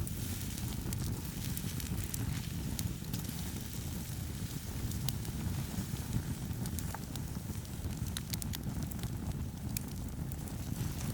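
Wood campfire burning: scattered sharp crackles and pops of burning firewood over a steady low rumble.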